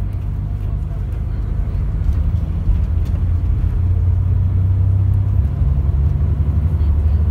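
Coach's diesel engine drone and road rumble heard from inside the cabin, a steady low hum that grows louder about two seconds in as the coach picks up speed.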